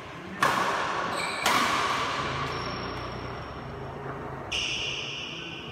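Two sharp racket-on-shuttlecock strikes about a second apart, each ringing on in the hall's echo. A high squeak starts suddenly near the end.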